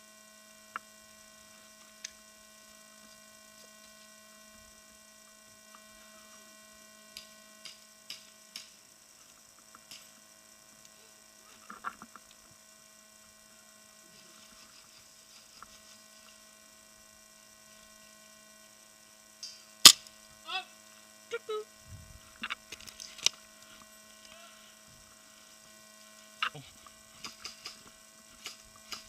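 Steady electrical hum throughout, with scattered sharp clicks and snaps; the loudest comes about 20 seconds in, followed by a quick cluster of them over the next few seconds.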